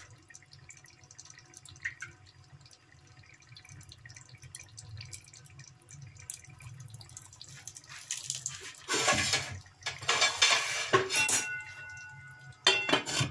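Cooking oil poured onto a hot charcoal set on foil in a karahi of mutton curry: a faint trickle, then loud sizzling and spitting from about eight seconds in as the oil hits the coal and starts to smoke, in several bursts. A short metallic ring sounds near the end.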